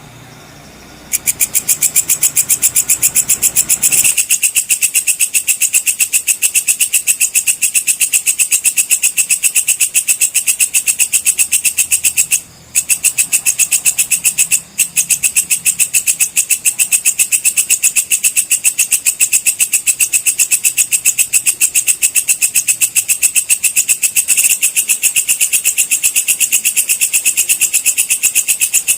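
Walang kecek (belalang kecek) insect stridulating: a loud, high, rapid train of even chirping pulses that starts about a second in and breaks off twice briefly near the middle.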